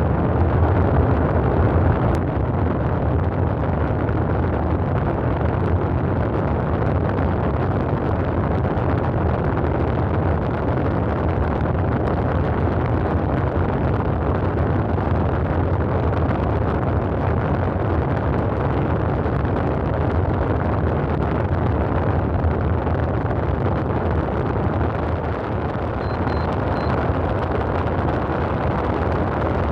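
Steady noise of heavy multi-lane highway traffic, with cars and vans passing continuously and their tyres and engines blending into one even rush. A few faint short beeps come near the end.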